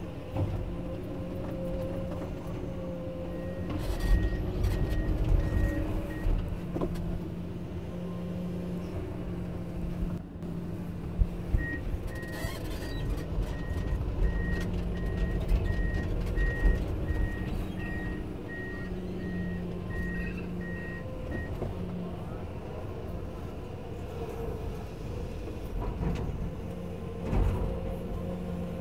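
Komatsu PC210LC excavator's diesel engine running under working load, with its travel alarm beeping steadily at a high pitch, briefly a few seconds in and then for about ten seconds from the middle. Several knocks and thumps come from the bucket handling a pulled tree stump.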